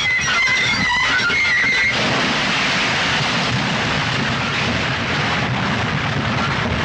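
Car tyres screeching under hard braking, a wavering squeal for about two seconds, then a long loud crash noise that continues to the end.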